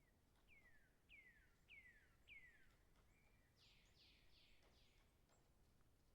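A bird calling faintly: four clear whistled notes, each sliding down in pitch and about half a second apart, then a short level note and a quick run of four harsher falling notes.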